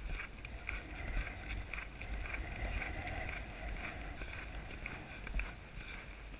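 Ridden chestnut horse moving along grass, with rhythmic hoofbeats and tack sounds about three times a second. Wind rumbles on the microphone underneath.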